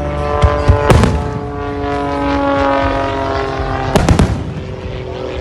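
Fireworks going off. There is a quick cluster of sharp bangs about half a second to a second in, and another cluster about four seconds in.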